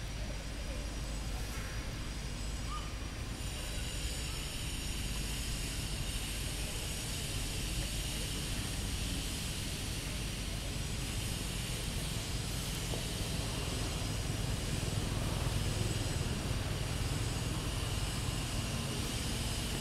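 Steady outdoor background noise: a low rumble with a hiss over it, slightly louder in the second half.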